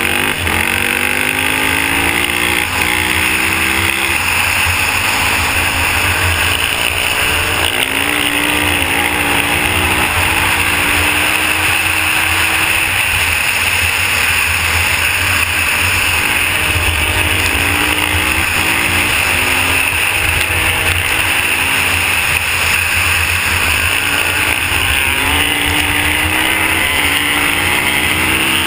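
Dirt bike engine running at speed, its pitch climbing and falling again and again as it is revved and shifted, over a steady rush of wind on the microphone.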